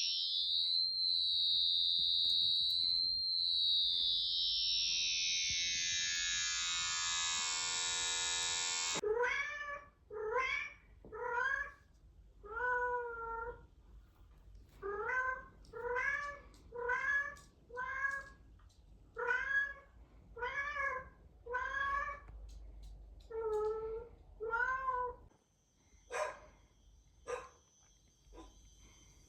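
An electronic tone sweeping down and back up in pitch for about nine seconds, then a cat meowing about fifteen times, roughly once a second. Two sharp clicks come near the end.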